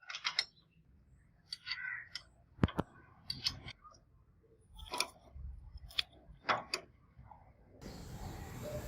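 Hand tools and small metal parts clicking and clinking in irregular sharp strokes. A steady hiss comes in near the end.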